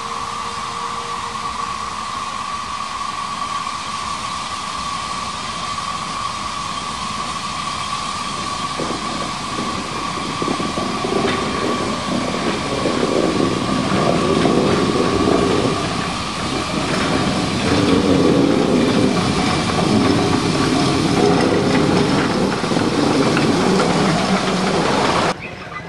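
Shay geared steam locomotive working slowly up to and past the listener. A steady high hiss is heard first. Then a growing clatter of its geared drive and running gear gets louder as it draws level, and the sound cuts off suddenly near the end.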